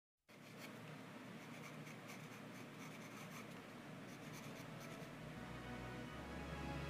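Graphite pencil scratching on drawing paper as a hand sketches light outline strokes, a soft run of short strokes. A low steady hum comes in near the end.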